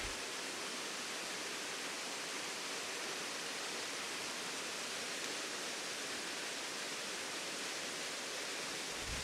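Waterfall rushing: a steady, even hiss of falling water that does not change.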